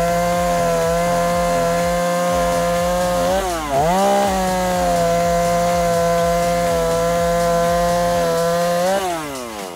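Renegade two-stroke petrol chainsaw running at full throttle as its freshly sharpened chain cuts through a block of hardwood. The revs dip and pick up again a few seconds in, and near the end the throttle is released and the engine winds down.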